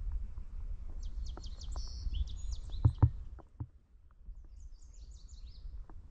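A small bird calling with quick high chirps and trills, twice, over a low rumble with scattered small ticks. Two loud knocks come close together about halfway through, and the rumble drops away soon after.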